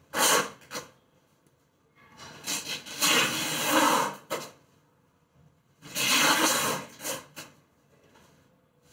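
Small kitchen knife cutting and scraping soft roasted tomatoes against a wooden cutting board: three bursts of scraping noise, the second and third each a second or two long.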